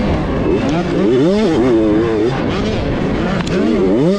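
Two-stroke 65cc motocross bike engine, heard from on board, revving up and down as the rider works the throttle over the track. Its pitch climbs sharply near the end.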